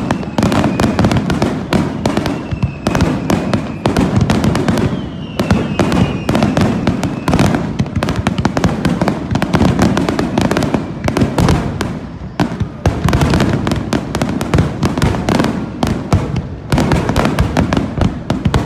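Fireworks display: a dense, continuous barrage of bangs and crackling bursts, with a faint whistle drifting in pitch during the first half.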